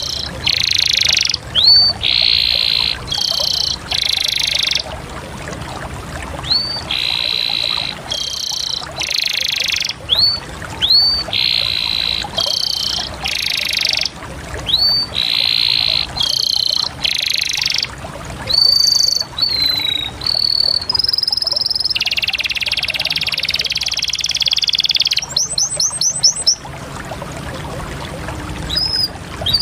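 Domestic canary singing: a string of fast rolling trills, most under a second long and one held for about three seconds, broken up by short upswept chirps and a quick stutter of notes near the end.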